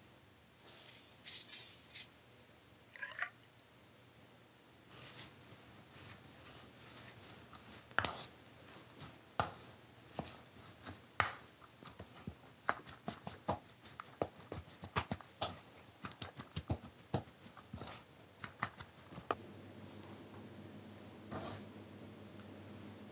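Cooked rice and seasoned chwinamul being mixed in a stainless steel bowl: a long run of quick, uneven clicks and scrapes against the metal, with soft sticky squishing of the rice.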